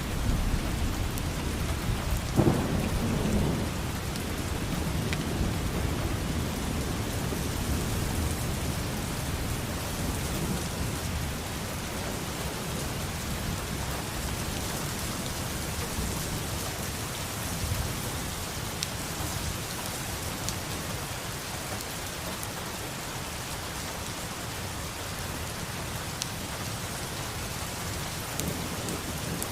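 Steady rain falling, with a low rumble of thunder in the first part that is loudest about two and a half seconds in, then fades under the rain.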